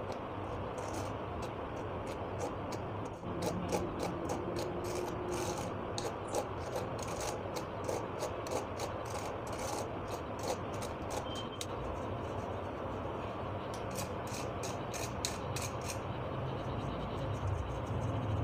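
A metal spoon scraping and rubbing flour through a stainless steel wire-mesh sieve: a run of short gritty scratching strokes, several a second, that thins out near the end. A steady low background hum runs underneath.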